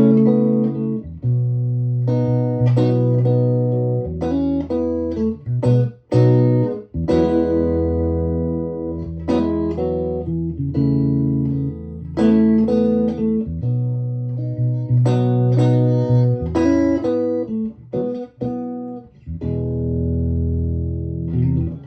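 Electric guitar, a Stratocaster with Fralin pickups, played through a Victoria 35310 tweed Bandmaster-style tube amp with three Jensen P10R speakers. A run of strummed chords and picked notes, each left to ring out.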